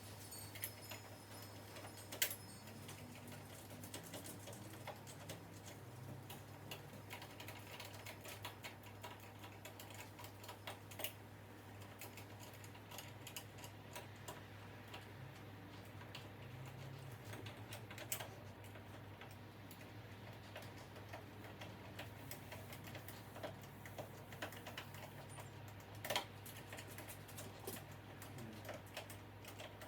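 Light scattered clicks and taps of metal door-handle hardware being handled and screwed together, with a few sharper knocks, over a steady low hum.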